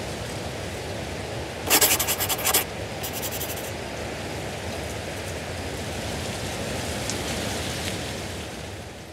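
A steady rushing hiss, broken about two seconds in by two short bursts of rapid clicking or rustling.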